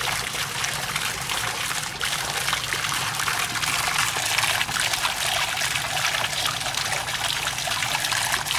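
Hot-spring water pouring steadily from the spout of a stone fountain and splashing into the stone basin below.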